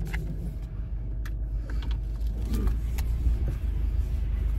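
Car heard from inside the cabin: a steady low rumble from the running car, with a few light clicks and knocks.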